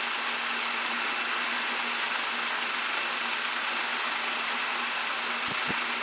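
Steady background hiss of room noise with a faint high whine and a low hum, and two soft low knocks near the end.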